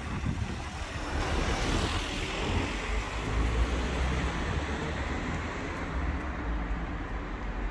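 A car driving past on the street. Its tyre and engine noise rise about a second in, with a falling whoosh as it goes by, over a low traffic rumble.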